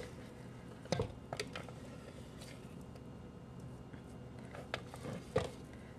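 Scattered light knocks and clicks from a plastic food-processor bowl and blade being handled while sticky gluten dough is pulled out of it by hand. The sharpest knocks come about a second in and a little after five seconds.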